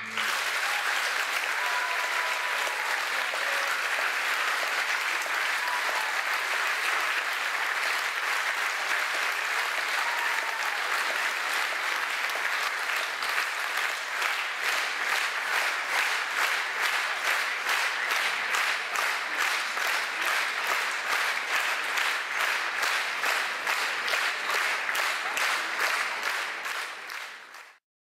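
Audience applauding after a dance, the clapping settling into a steady rhythmic beat in unison about halfway through, then fading out near the end.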